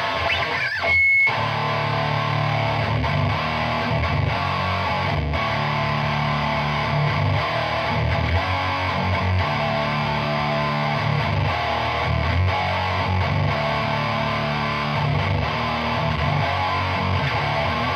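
Electric guitar, a Gibson SG tuned to D standard, played through a Lone Wolf Audio chainsaw-style distortion pedal into a Peavey 6505 amp: slow, heavily distorted low riffing in long sustained chords with short breaks. A brief high feedback squeal sounds just after the start.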